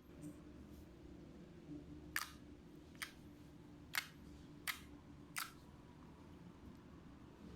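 Fluffy slime being handled, giving five sharp popping clicks spaced roughly a second apart over a faint low hum.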